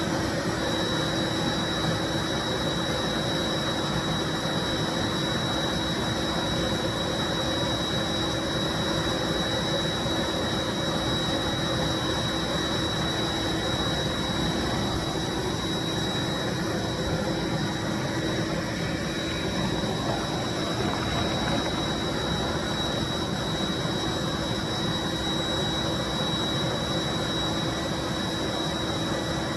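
1995 Bissell SC deep cleaning machine running steadily: an even motor noise with a constant high-pitched whine and a low hum.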